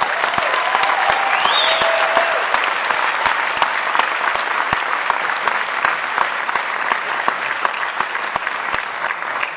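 Audience applauding: a dense, steady patter of many hands clapping, with a short whoop from someone in the crowd about one to two seconds in.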